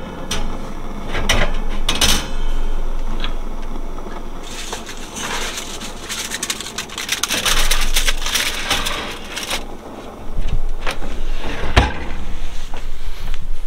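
Aluminium tin foil crinkling and being scrunched, among knocks and clatter of kitchen handling; the rustling is densest in the middle.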